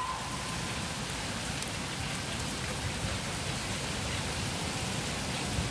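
Heavy rain falling steadily, an even hiss of downpour with no letup.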